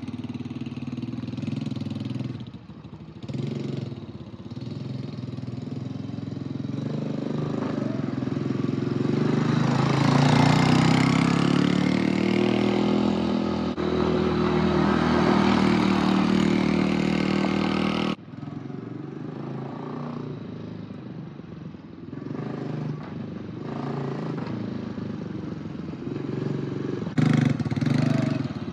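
Small Chinese X-Pro 125 ATV engine running. It revs up about eight seconds in and holds a higher pitch for several seconds, then cuts off abruptly to a lower, uneven running sound.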